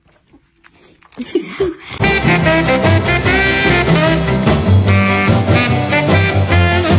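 Background music in a swing style with brass, starting suddenly about two seconds in after a quieter stretch.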